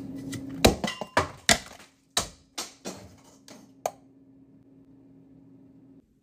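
Thick batter bursting out of a blender cup and splattering: about nine sharp splats and knocks in quick, uneven succession over the first four seconds, fading as they go, over a faint steady hum.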